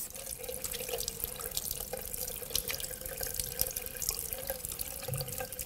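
A pillar tap running into a washbasin while hands are washed under it, the stream hissing steadily with small splashes throughout.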